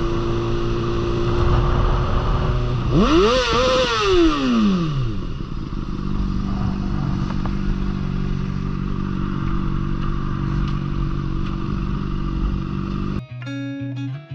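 Motorcycle engine running at road speed, with wind noise on the microphone. About three seconds in it revs sharply up and falls back, then settles to a steady note. Guitar music comes in near the end.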